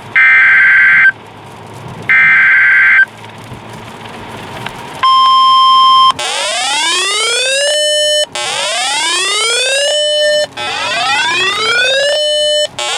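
Emergency Alert System tones. First come the last two of the three screeching SAME header data bursts. About five seconds in, a steady one-second NWS attention tone sounds near 1 kHz. Then a siren-like wail rises and holds, repeating about every two seconds.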